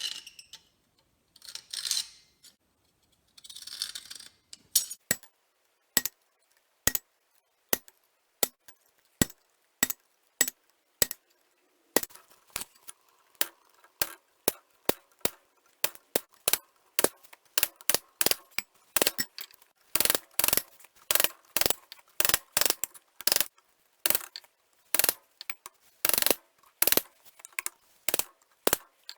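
Blacksmith's hammer striking steel on an anvil while forging: a few scraping noises at first, then single blows about one a second, quickening to about two a second after about twelve seconds.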